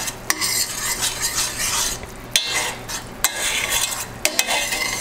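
A utensil stirring a sizzling garlic-butter and honey sauce in a stainless steel pan, with about four sharp clinks of the utensil against the pan.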